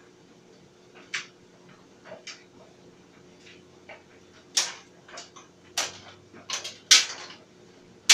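Clothes dryer running with a low steady hum, while something in the drum clicks and knocks at irregular moments as the load tumbles, the loudest knocks coming in a cluster toward the end.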